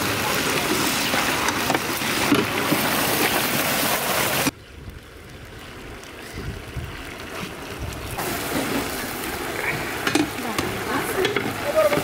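Cooking at a large steel curry tray: a steady sizzling hiss that cuts off abruptly about four and a half seconds in, then quieter knocks and scraping from the ladle and tumbling banana pieces, building up again toward the end.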